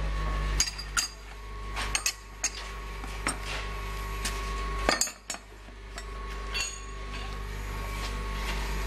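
Scattered metal clinks and knocks, about nine in all and loudest about five seconds in, as a stainless-steel tubular centrifuge bowl is handled and laid on its rack. A steady low hum runs underneath.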